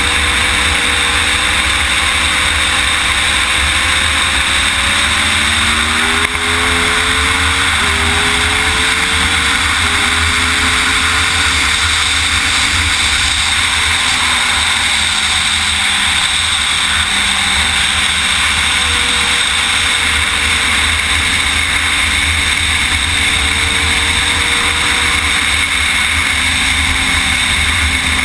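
Sportbike engine under way, heard from onboard over heavy wind rumble on the microphone. The revs climb and step up through upshifts between about five and ten seconds in, drop back around halfway, then hold steady.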